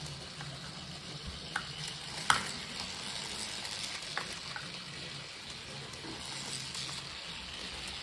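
Wind-up capsule Plarail toy trains running on plastic track: a steady, quiet whirring rattle of the small geared motors and wheels, with a few light clicks along the way.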